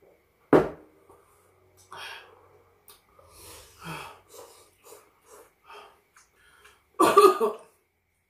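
A person coughs loudly in a short fit of several bursts near the end. A sharp single burst comes about half a second in, and quieter noodle slurping and chewing fill the middle.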